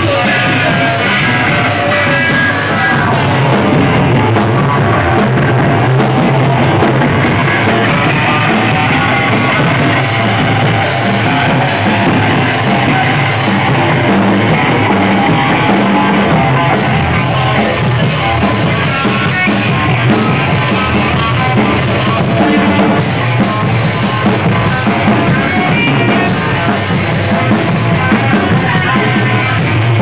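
Loud rock music from a band: drum kit and guitar playing steadily.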